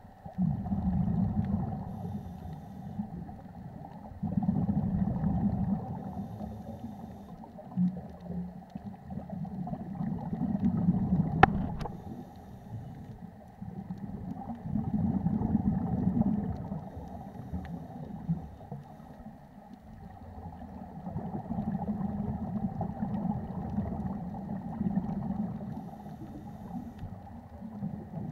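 Scuba regulator exhaust: bubbles burbling out in a loud swell every few seconds, heard muffled underwater. One sharp click comes near the middle.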